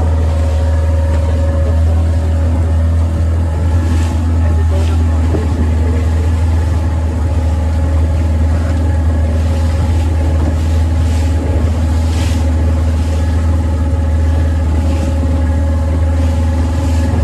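Boat's outboard motor running steadily, an even, loud drone that holds the same pitch throughout.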